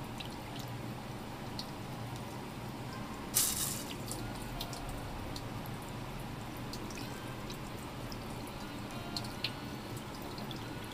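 Wet handling of small kibinago fish: scattered small wet clicks and drips, with a short burst of water sound about three seconds in.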